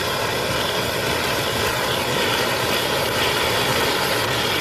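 Steady rushing noise of petrol, sprayed by fuel injectors out of the ports of an inlet manifold, burning in large billowing flames.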